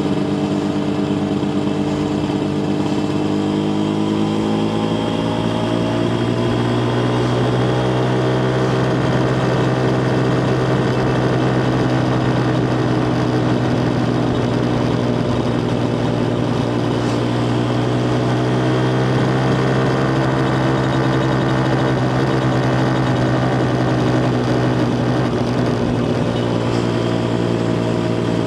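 Yamaha TZR250 1KT's two-stroke parallel-twin engine running at a steady engine speed, its pitch rising slightly over the first several seconds and then holding level.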